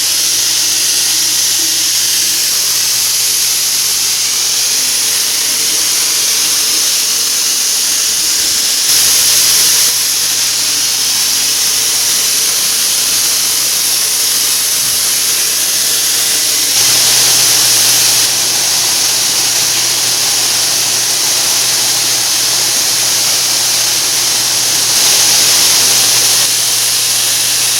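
High-pressure rain shower head running, water spraying with a steady, loud hiss that grows briefly louder three times, about eight seconds apart.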